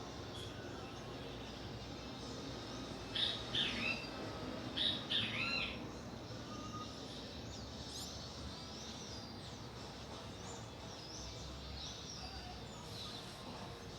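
Birds calling: two quick clusters of loud, arching chirps about three and five seconds in, then fainter scattered chirps, over steady outdoor background noise.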